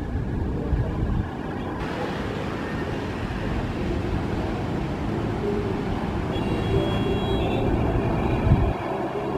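Distant aircraft engines running as a plane moves on the airfield, heard as a steady rumble with irregular low buffeting. There is a single sharp thump near the end.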